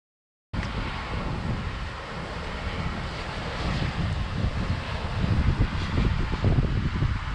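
Dead silence for about half a second, then wind buffeting the microphone: a gusty low rumble with a steady hiss, its gusts growing stronger in the second half.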